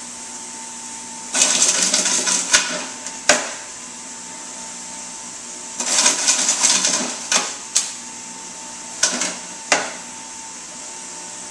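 Jack LaLanne Power Juicer's electric motor running with a steady hum, broken three times by loud grinding as scuppernong grapes are pushed down the feed chute into the spinning cutter, with a few sharp clicks between.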